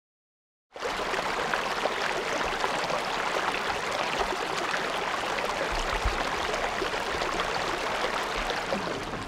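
Silence for a moment, then a small, shallow mountain stream running and rippling over rocks, starting abruptly and going on steadily.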